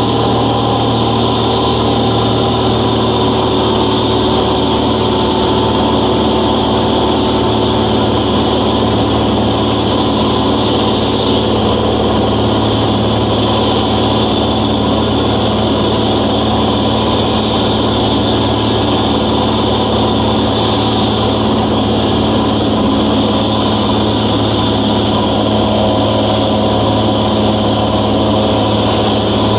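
Cabin noise of a Velocity S-FG in cruise flight: its 180 hp engine and propeller droning steadily at constant power, over the even hiss of air rushing past the airframe.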